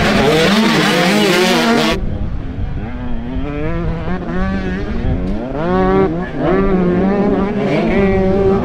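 Motocross bikes racing, their engines revving hard and repeatedly climbing and dropping in pitch through the gears. The sound changes abruptly about two seconds in.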